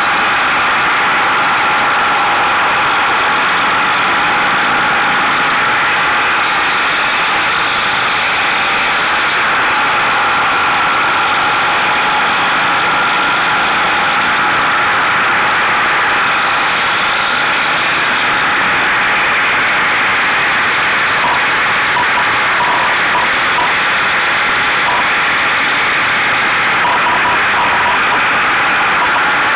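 Steady rush of wind and engine noise from a Buell motorcycle riding at speed, picked up by a camera mounted on the mirror stalk of the shaking bike.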